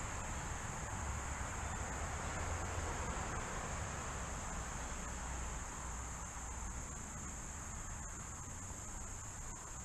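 Steady high-pitched buzz of an insect chorus, with an even low rumble beneath it.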